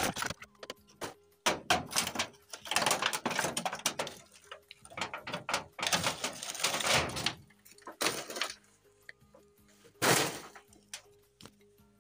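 Demolition work on an old kitchen: a series of sharp knocks and longer crashing, scraping stretches of breaking material and falling debris, with faint background music underneath.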